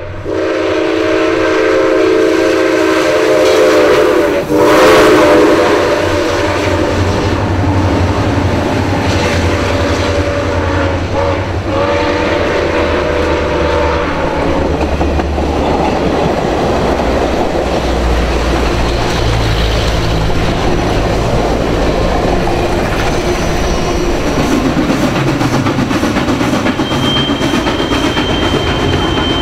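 A locomotive whistle sounds a chord of several notes for about 14 seconds, broken twice, in what looks like the long, long, short, long grade-crossing signal. After it stops, the train rumbles and clatters past on the rails, and a thin high squeal comes near the end.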